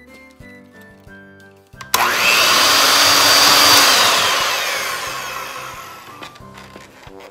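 Electric hand mixer starts suddenly about two seconds in, its beaters whirring through dry, crumbly shortbread dough of butter and cookie mix. It dies away gradually near the end.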